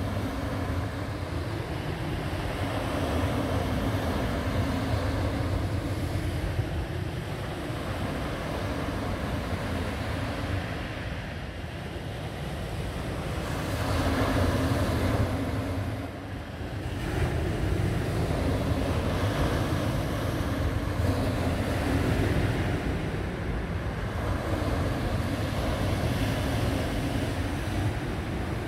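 Small sea waves breaking and washing up a pebble beach in a steady surf noise, one surge louder about halfway through. Wind buffets the microphone with a low rumble.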